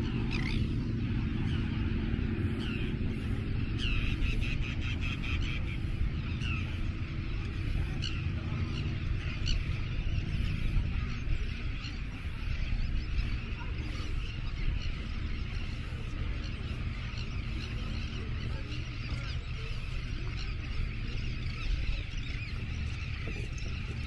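Terns calling: many short, harsh calls overlapping throughout, over a steady low rumble.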